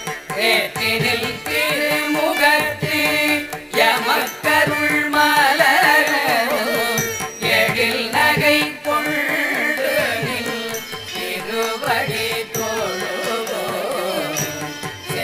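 Carnatic-style music: a wavering melody over a steady drone, with sharp drum strokes throughout.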